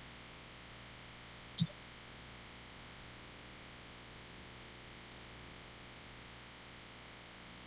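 Faint steady hiss of room tone, with one short sharp click about one and a half seconds in.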